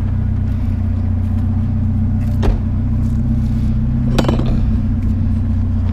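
Pickup truck engine idling steadily close by, with two sharp knocks, about two and a half and four seconds in, from scrap items being handled.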